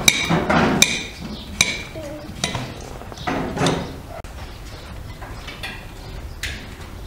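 A kitchen knife cutting through vegetable pieces onto a ceramic plate, the blade clicking sharply against the plate with a short ring at each stroke. The strokes come several times in the first couple of seconds and once more near the end.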